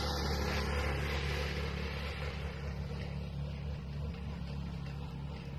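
An engine running steadily with a low hum, with a hiss over it that fades during the first couple of seconds.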